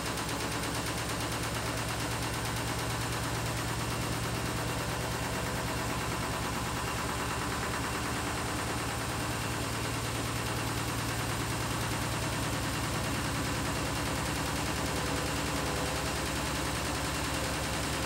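Beko WTK104121W front-loading washing machine spinning its drum fast: a steady motor and drum hum with a fast, even rattling pulse running through it.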